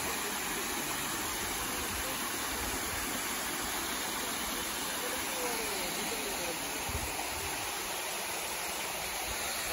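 Water from a small waterfall cascading over rock ledges into a pool: a steady rushing and splashing.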